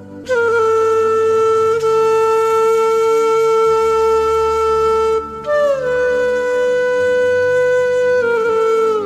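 Backing music of long-held notes on a wind instrument, one melodic line. A first note holds for about five seconds. After a short break a higher note slides down and holds, then drops a step lower near the end.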